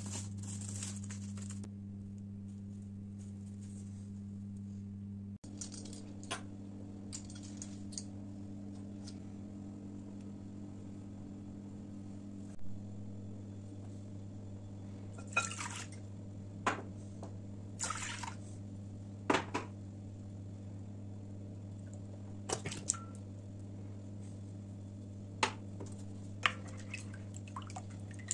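Kitchen sounds over a steady low hum. A knife crunches through a crisp baked pastry crust in the first second or two. Then liquids are poured into a glass mixing bowl, with a scattering of sharp clicks and clinks of a utensil against the glass.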